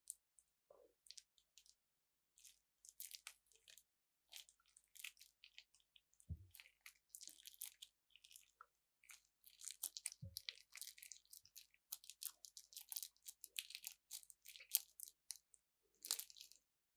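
Quiet, irregular crinkling and crackling of a plastic piping bag squeezed and wrung by hand to push thick glue out of its tip, with two soft thumps along the way.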